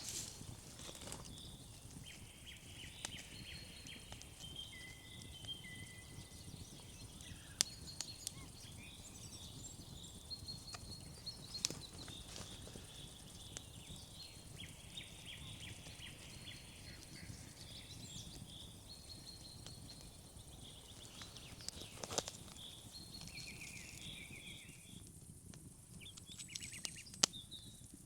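Quiet outdoor ambience with repeated short, high chirping trills from small animals, broken by a few sharp cracks.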